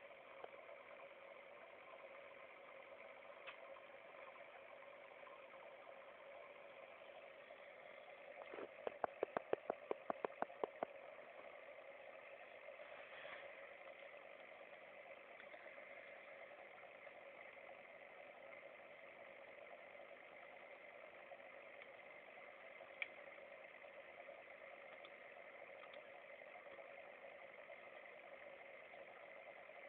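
Faint steady hum, close to near silence, broken by a quick run of about a dozen clicks around nine to eleven seconds in.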